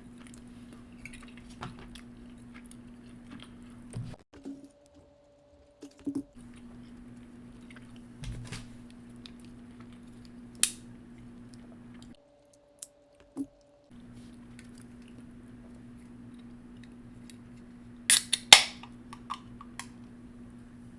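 Close-miked chewing of food, with scattered small clicks and clatter of utensils and dishes; the loudest clatter comes in a quick cluster about eighteen seconds in, over a faint steady hum.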